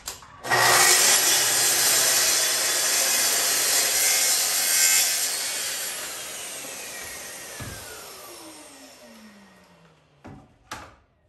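Festool plunge track saw cutting a melamine panel along its guide rail: the saw starts about half a second in and cuts loudly for about four seconds, then the motor winds down with a falling whine over several seconds. Two short knocks near the end.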